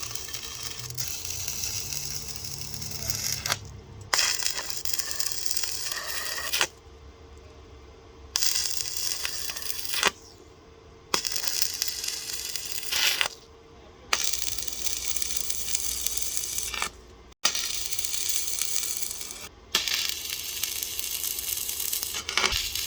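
Stick (arc) welding on a steel frame: the arc crackles and hisses in about seven runs of a few seconds each, stopping and restarting as each weld is laid. A faint steady hum runs underneath throughout.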